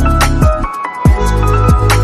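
Background music with a steady beat: deep drum hits that slide down in pitch, held bass and synth notes. The bass drops out briefly a little before the middle and comes back on a hit.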